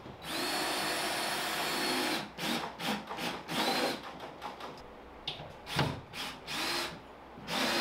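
Cordless drill driving screws into sheetrock overhead: one steady motor whine of about two seconds, then a string of short stop-start bursts as the screws are run in.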